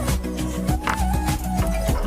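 Recorded pop song playing through a wordless instrumental stretch, with a steady beat, bass notes and a high melody line.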